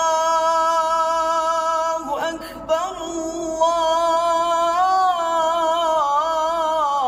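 A man's solo voice chanting the azan, the Islamic call to prayer, in maqam Nahawand: a long held note, a short break about two seconds in, then another sustained line that turns into wavering melismatic ornaments near the end.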